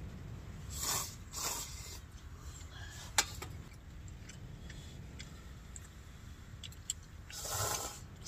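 Ramen noodles being slurped from a metal camping bowl: two short slurps about a second in and a longer slurp of broth near the end. A single sharp click falls in between, over a steady low rumble.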